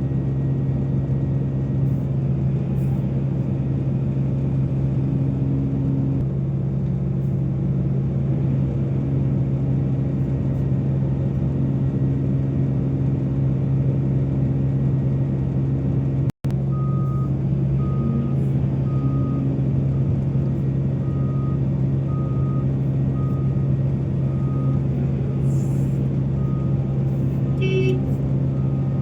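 A heavy diesel engine of mining machinery runs steadily at an even pitch. After a brief dropout just past halfway, a reversing alarm beeps about once a second.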